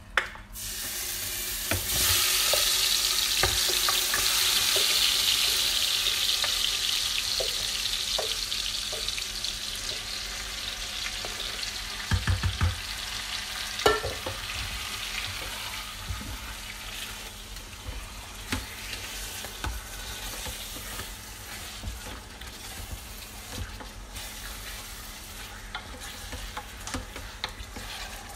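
Marinated lamb sizzling in hot butter and olive oil in an Instant Pot's inner pot, starting loud about two seconds in and slowly dying down as the meat cools the fat. A wooden spoon stirs through it, knocking against the pot a few times near the middle.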